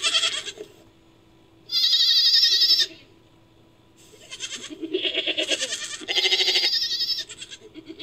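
Creature sound effect made from goat and Japanese serow recordings: about four bleating calls with pauses between them. The loudest comes about two seconds in and has a quavering pitch.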